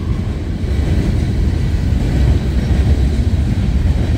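Uneven low rumble with no distinct events and no pitch.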